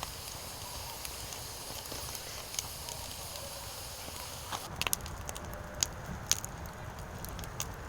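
Firewood burning, crackling steadily with scattered sharp pops and snaps that come more often from about halfway through.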